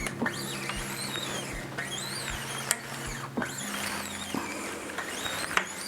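A newly fitted acoustic guitar string being stretched by hand, with string rubbing and squeaks and a couple of sharp knocks. A faint backing track with a steady low beat plays underneath.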